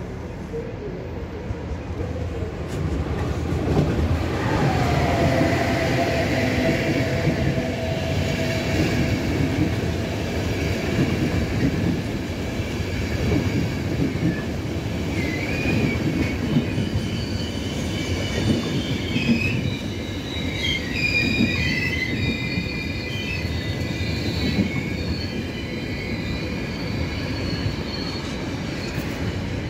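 Electric locomotive-hauled train of ÖBB passenger coaches rolling slowly past, with the wheels rumbling over the track. A falling tone sounds about four seconds in, and high-pitched wheel squeal in several tones runs from about fifteen to twenty-five seconds in.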